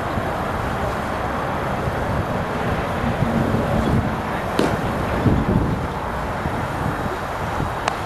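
Steady outdoor rumble of wind on the microphone, with a sharp pop about four and a half seconds in as a pitched baseball hits the catcher's mitt, and a fainter click near the end.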